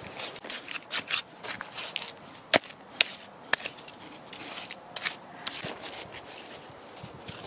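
Small plastic hand scoop scraping and digging into damp clay on a plastic tarp. An irregular run of scrapes and tarp rustles, with a few sharp clicks near the middle.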